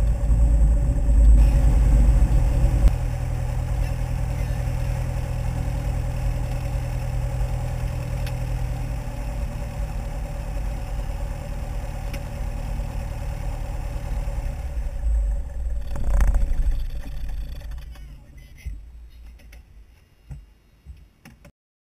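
Light single-engine airplane's piston engine running steadily at low power, a low drone heard inside the cabin. It swells briefly, then dies away over the last few seconds.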